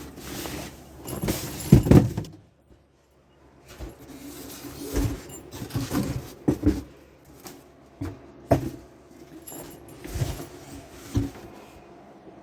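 Tools and packaging being handled and set down: irregular knocks, rustles and clunks, loudest as a pair of thumps about two seconds in.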